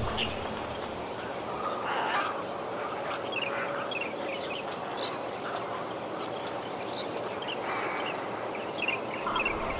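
Birds calling in short, scattered chirps over a steady background hiss.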